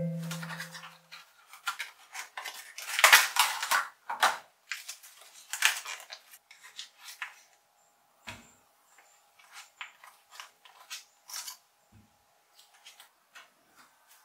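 Kitchen utensils and dishes being handled: irregular clinks, clicks and light knocks, loudest about three seconds and six seconds in.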